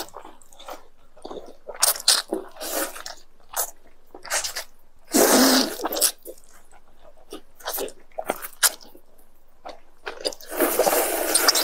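Two people loudly slurping black bean sauce noodles (zhajiangmian), in long sucking bursts about five seconds in and again near the end, with wet chewing and lip smacks in between.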